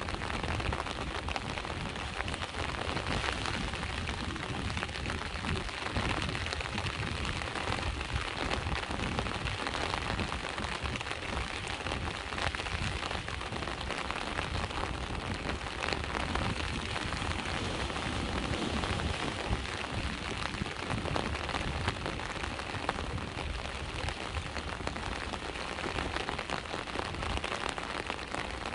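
Steady rain falling, a dense even patter of small drop hits with a constant low rumble underneath.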